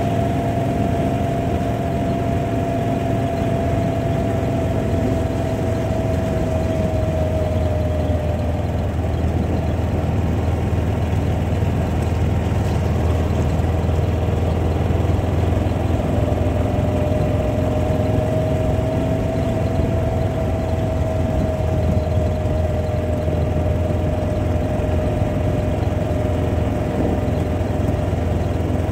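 Kawasaki Mule side-by-side running steadily at low speed, with a steady low engine rumble. A thin whine over it sags slightly in pitch and fades out about eight seconds in, then comes back about halfway through, rising a little before easing off.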